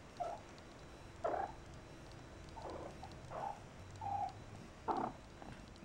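Kitten mewing: about half a dozen short, high mews, spaced through a few seconds.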